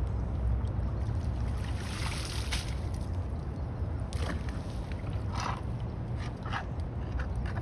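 A rake splashing and dragging through leaves and pine needles in shallow floodwater, clearing debris off a clogged submerged drain, in a few separate strokes starting about two seconds in. A steady low rumble runs underneath.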